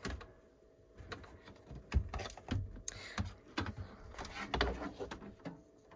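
Scattered clicks, knocks and rustling of a power cord and plug being handled and pushed into a socket, with a few sharper knocks, the loudest about two seconds in and again later on.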